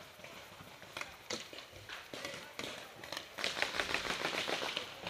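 Paintball markers firing: scattered single pops, then a quick burst of many shots about three and a half seconds in.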